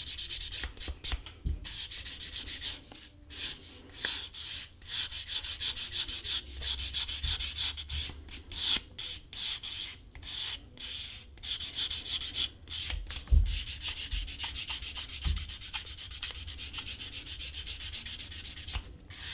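Sandpaper rubbed by hand in quick back-and-forth strokes along the edge of a leather piece, sanding down a dried coat of acrylic edge paint to round the edge. The scraping comes in runs broken by short pauses, with a low bump about thirteen seconds in.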